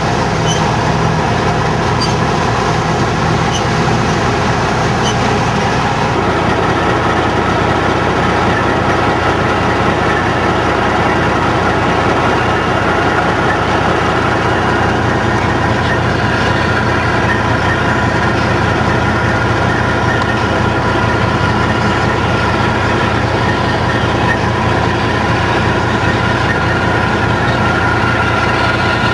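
John Deere combine harvesting soybeans: the diesel engine and threshing machinery run with a steady drone and a constant hum, with a slight change in the mix about six seconds in.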